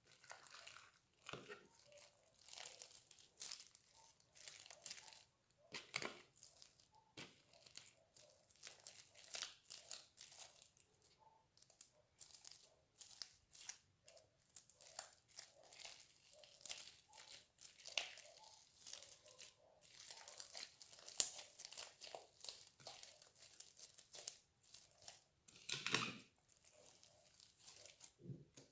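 Slime being squeezed and stretched by hand: a dense run of small crackles and pops, with one louder crackle near the end.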